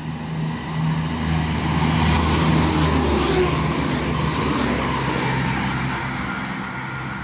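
Chiltern Railways Class 168 diesel multiple unit running through the station at speed without stopping. A steady low diesel engine drone and the rush of wheels and air swell as it approaches, peak about two to three seconds in as the carriages pass, then fade as it draws away.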